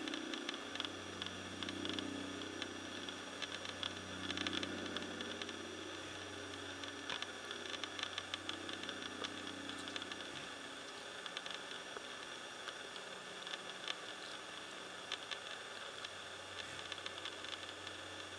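A faint, steady low engine hum, with scattered faint clicks and crackle over it.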